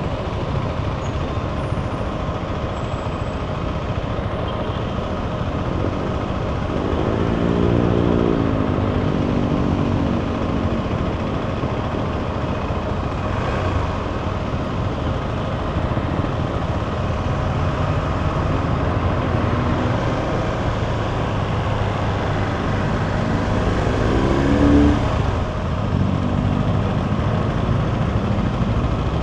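Steady engine and road noise from a KTM 390 Adventure's single-cylinder engine riding through city traffic, with surrounding cars and jeepneys. The engine note rises and falls about seven seconds in and again, more briefly, near the end.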